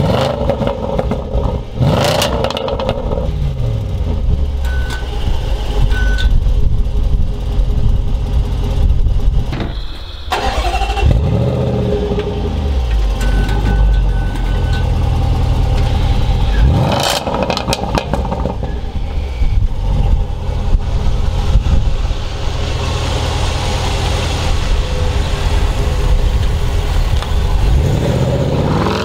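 Supercharged 5.0-litre V8 of a Range Rover Sport SVR heard at the exhaust, running and revved several times, its pitch rising and falling. Near the end it pulls away.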